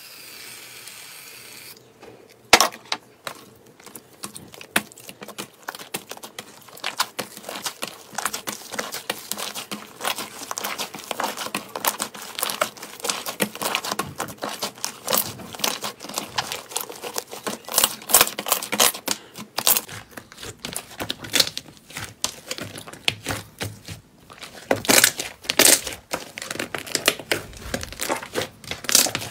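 Hands stretching, folding and squeezing a pink fluffy slime, giving dense, irregular crackling and popping as air pockets burst and the sticky slime tears and unsticks. A steady hiss fills the first two seconds before the crackling begins.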